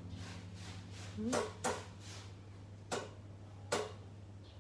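A few light knocks and taps as a slice of bread is set into a Philips air fryer basket and an egg is held over it, four short sharp taps spread through, over a steady low hum.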